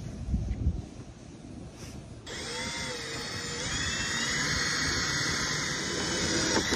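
Cordless drill starts about two seconds in and runs steadily for about four seconds, drilling a small pilot hole into the van's steel body. A whine rises and falls in pitch as the bit cuts, and it stops just before the end.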